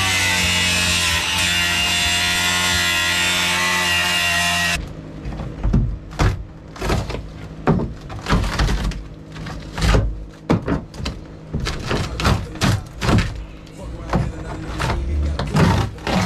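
Rock music for the first five seconds, then it cuts off. After that comes a run of irregular knocks and thuds as the boat's rotted floor is pried, broken and pulled up by hand.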